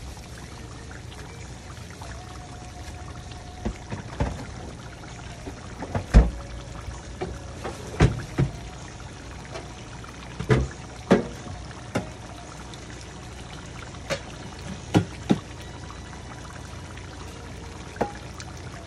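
Thick chicken curry sauce simmering in a frying pan, bubbling with irregular louder blips and pops every second or two over a steady low hum.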